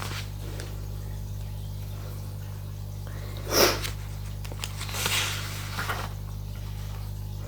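Steady low hum, with a short breath-like puff about three and a half seconds in and a softer one about five seconds in.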